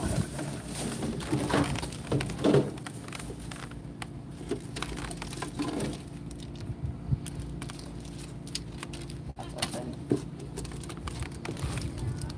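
Plastic bags and candy wrappers rustling and crinkling, with small knocks, as items are sorted through by hand, over a low steady hum.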